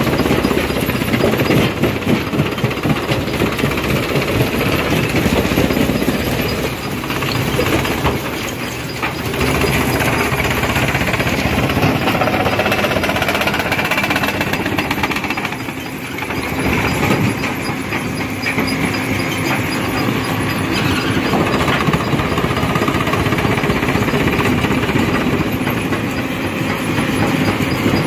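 Rock crusher running and crushing stone: a continuous, loud crunching and grinding clatter of many small impacts, easing briefly twice.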